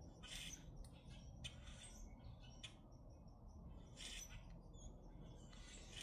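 Common grackles giving short, harsh calls, about five of them at irregular gaps, faint.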